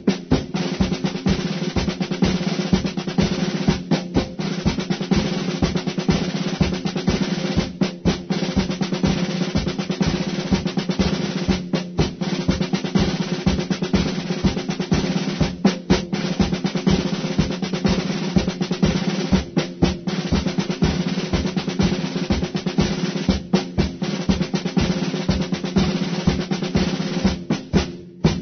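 Military-style drumming: a continuous snare drum roll over a steady bass-drum beat, with a short break about every four seconds.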